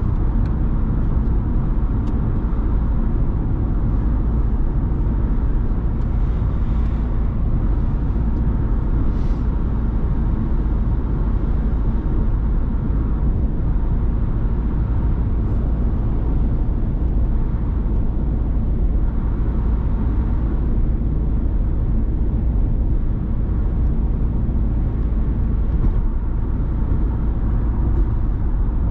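Steady low rumble of a Ford Transit Custom diesel van driving on a wet road: engine and tyre noise holding an even level.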